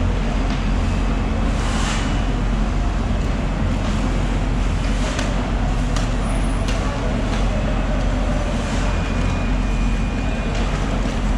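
Steady low mechanical rumble of background machinery, with a few faint clicks and knocks on top.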